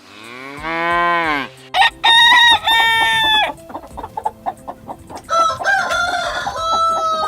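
A cow lows once, a low call that rises and falls. Then a rooster crows, two long crows about two seconds apart.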